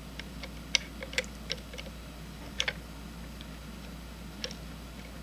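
Small adjustable crescent wrench clicking against the metal condensing-lens mount of a slit lamp as it is fitted and turned: several sharp, irregular metallic ticks, the loudest about a second in and a quick pair near the middle, over a low steady hum.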